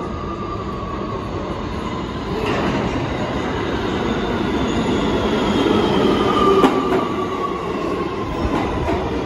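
Kawasaki R211T subway train pulling into the station, its rumble growing louder from about two and a half seconds in. A whine falls slowly in pitch as the train slows, and there is a sharp click partway through.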